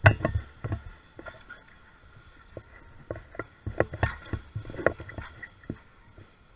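Irregular thumps and crackles, the loudest right at the start, over the faint steady whine of an electric RC jet boat's motor running on the water.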